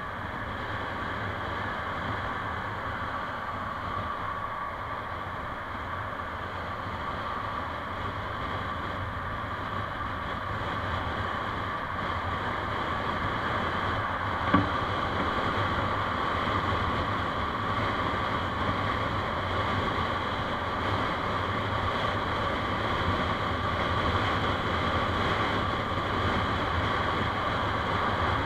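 Steady wind and road noise of a moving vehicle picked up by a dashcam's microphone, with a constant hum and whine, gradually getting a little louder. A single sharp click about halfway through.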